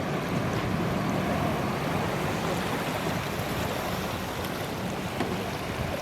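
Jet airliner on landing approach, a steady broad engine roar that swells slightly about a second in and then slowly fades, with wind buffeting the microphone.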